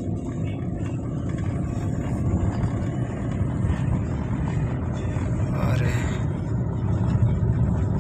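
Steady low rumble of a car's engine and tyres heard from inside the moving car's cabin. About six seconds in, a short rising sound cuts briefly through.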